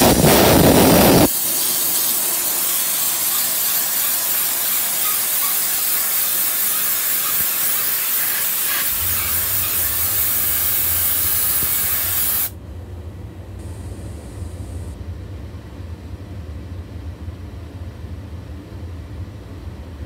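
Steam jet from an Optima CMF diesel steamer's hand gun blasting onto an air-conditioner coil: a loud spurt as it opens, then a steady high hiss that cuts off suddenly about twelve seconds in. A low steady rumble comes in about nine seconds in and carries on after the hiss stops.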